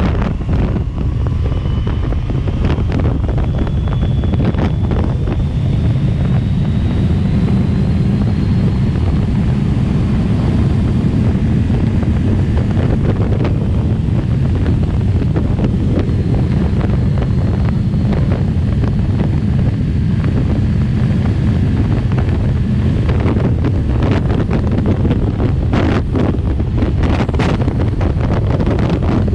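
Heavy wind rush on the microphone of a sport motorcycle riding at highway speed, with the bike's engine running faintly underneath, a thin whine slowly rising in pitch over the first ten seconds. A few brief sharp crackles come near the end.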